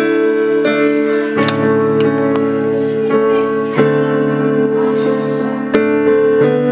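Digital piano played in slow, held chords, each chord ringing for about two seconds before the next is struck.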